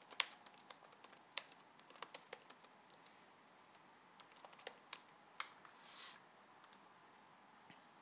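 Faint computer keyboard typing: short, irregular runs of key taps, most of them in the first five seconds. Near the end there are a few single clicks and a brief soft rustle.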